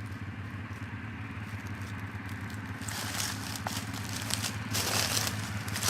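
A four-wheeler's engine idling steadily. From about halfway through, rustling and crunching through brush and weeds builds over it.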